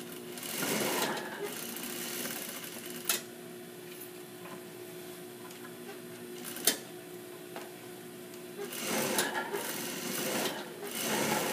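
Juki industrial lockstitch sewing machine sewing rows of pad stitching through interfacing in short runs: a brief run near the start and a longer run of a few seconds near the end. A steady low hum runs between the runs, with two sharp clicks.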